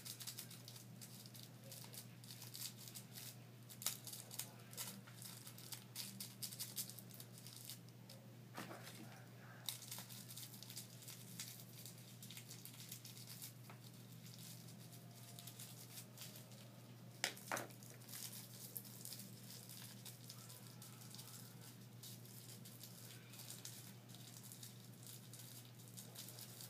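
Fingers rubbing and crumbling material over a wooden bowl: faint, irregular crinkling and crackling, with a few sharper clicks, over a steady low hum.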